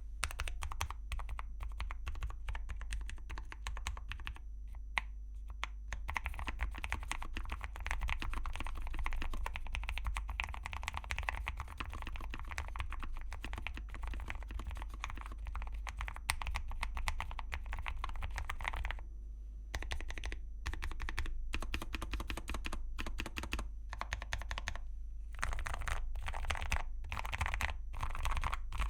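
Typing on an Akko Air 01 low-profile mechanical keyboard with Kailh Winter tactile switches, an aluminium plate, full foam and dye-sub PBT keycaps, with a thocky sound. A fast, near-continuous run of keystrokes stops briefly about two-thirds of the way through, then resumes in short bursts.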